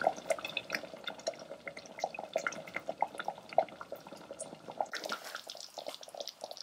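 Thick tomato-and-cream gravy simmering at a boil in an Instant Pot's steel inner pot, bubbles bursting in quick, irregular plops. About five seconds in, a soft hiss joins them.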